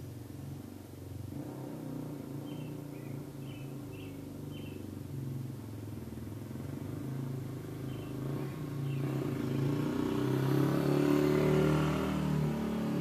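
A motor vehicle's engine running outside the house, getting louder about ten seconds in as if coming closer. A few short high chirps sound in the first half.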